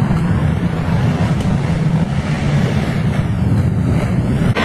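Quad ATV engines running steadily with a rough, dense rumble.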